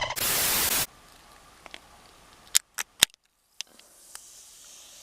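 Soda can being opened: a sharp hiss of escaping carbonation lasting under a second, followed by three short clicks about two and a half to three seconds in.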